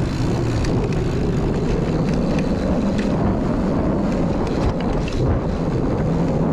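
Wind buffeting the microphone of a camera on a snap mount on a moving mountain bike, a steady low rumble, with scattered faint clicks and rattles from the bike over the trail.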